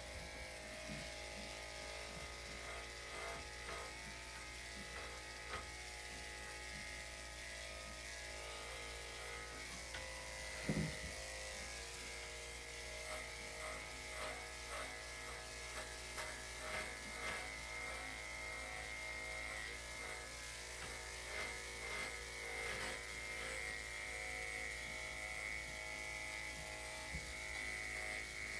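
Electric dog grooming clippers running steadily as they clip a miniature poodle's coat, with light irregular knocks throughout and one short, louder sound about eleven seconds in.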